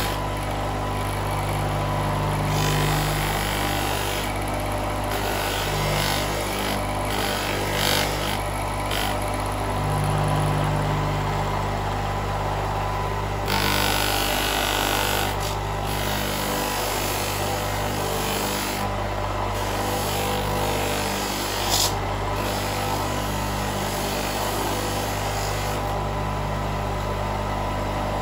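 Electric motor running steadily with a low hum, driving a polishing wheel on its extended shaft, while a Honda CBR650 aluminium rear footrest is pressed against the wheel to polish it. The rough hiss of the part on the wheel comes and goes as it is pressed and eased off.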